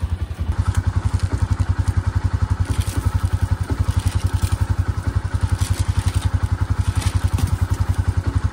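Can-Am side-by-side UTV's engine idling with a steady, rapid throb, with a few light thumps over it.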